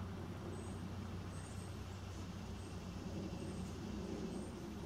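Outdoor background: a steady low hum and rumble, with short faint high chirps every half second to a second.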